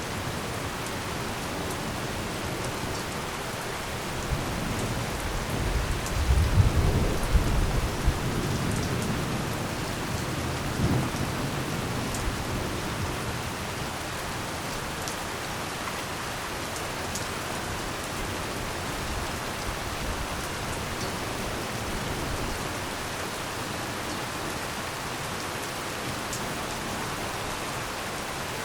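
Heavy rain falling steadily, with scattered close drop hits. A low rumbling swell rises about six seconds in and dies away by eight, with a shorter one around eleven seconds.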